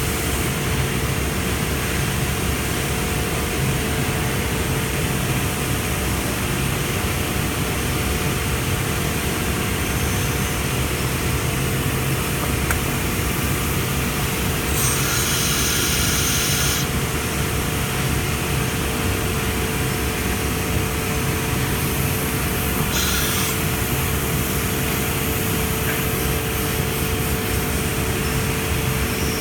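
CNC machine running with a steady hum and two steady tones, interrupted by a hiss of about two seconds about fifteen seconds in and a shorter one about twenty-three seconds in, typical of a pneumatic tool clamp releasing during an automatic tool change.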